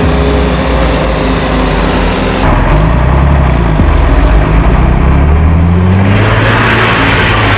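A John Deere tractor engine accelerating, rising in pitch, then passing right over the microphone about six seconds in with a loud rush of engine and tyre noise. Before that, for the first two and a half seconds, a Claas Jaguar forage harvester and tractor are running.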